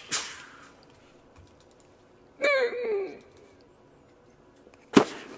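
Two sharp punch sound effects, one right at the start and another about five seconds in, each with a short ringing tail. Between them, about two and a half seconds in, comes a short vocal cry falling in pitch.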